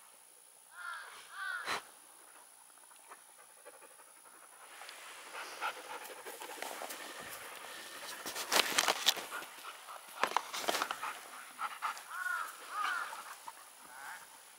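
Dog panting while rolling on its back and squirming in the grass, with rustling that is loudest past the middle. A few short high-pitched calls come about a second in and again near the end.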